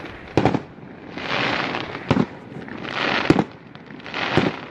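Aerial fireworks going off in a steady run: a hissing rush, then a sharp bang, repeating about once a second, with four bangs in all.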